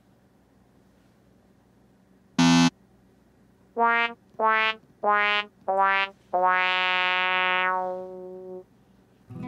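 Synthesized 'sad trombone' comedy sound effect, the 'wah-wah-wah-waaah' sting for a letdown. About two seconds in a short loud note sounds, then four short notes step down in pitch, each sagging slightly, and a last, lower note is held for about two seconds before fading.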